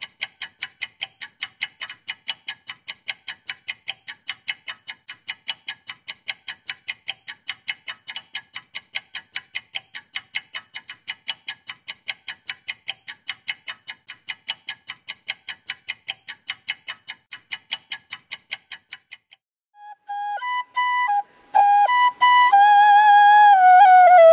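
Even, sharp ticking, about four ticks a second, like a suspense clock-tick effect laid over the film; it stops about 19 seconds in. About a second later a flute melody begins and carries on to the end.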